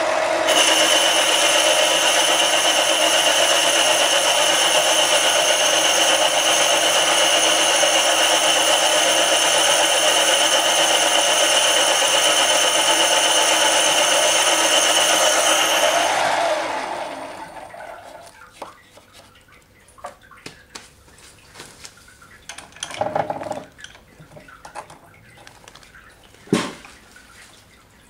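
Mini lathe running, its motor and gears whining steadily as a boring bar cuts inside a cast iron cylinder sleeve. About two-thirds of the way through the lathe is switched off and winds down to quiet, followed by a couple of short knocks.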